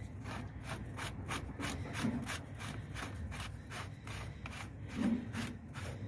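Plastic threaded union nut on a pond filter pipe being turned by hand: a repeated rasping rub, about three or four strokes a second.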